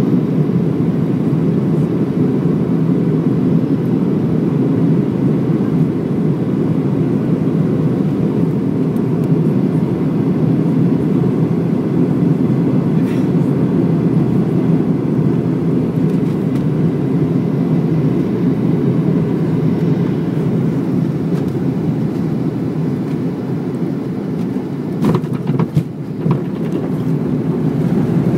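Steady low cabin rumble of a Boeing 737-800 on final approach, its CFM56 engines and airflow heard from a seat over the wing. Near the end the rumble dips and a few knocks sound as the plane comes down onto the runway.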